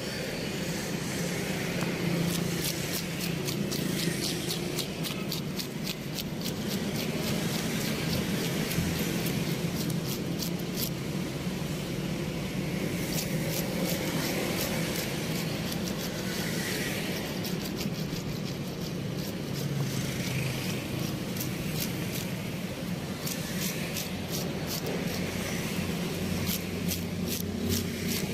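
Cleaver blade scraping the scales off a whole fish on a wooden chopping block, in runs of quick rasping strokes with short pauses between. A steady low rumble of road traffic runs underneath.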